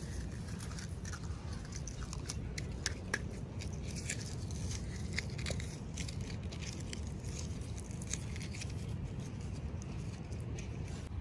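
Hands unwrapping and handling small toy packaging: scattered crinkles, crackles and light clicks over a steady low hum.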